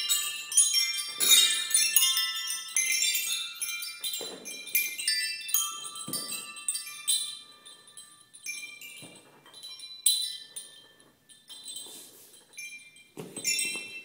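Coloured chime tubes hanging beneath a swing seat knock together and ring as the swing moves, giving a jangle of overlapping bright tones. The strikes are dense at first, thin out and fade after about halfway, then a fresh clatter with a few dull knocks comes just before the end.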